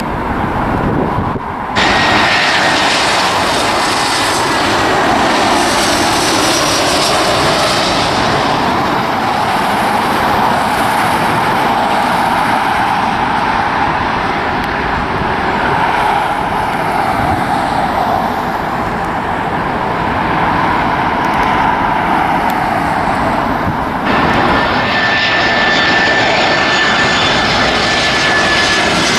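Jet airliner engines running loudly as planes climb out and come in to land, a steady roar with a thin high whine over it. The sound shifts abruptly about two seconds in and again near the end, where separate recordings are joined.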